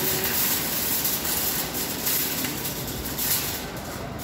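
Rustling and handling noise close to the microphone, with several brief scratchy surges, over a steady low background rumble.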